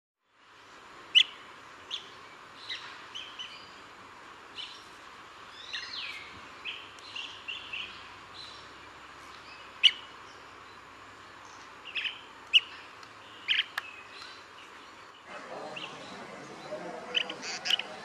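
Blue-tailed bee-eater calling: short, scattered chirping calls, a few of them sharp and loud, over a steady background hiss.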